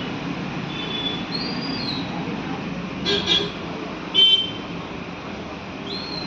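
Steady road-traffic noise with several short horn toots, the two loudest about three and four seconds in.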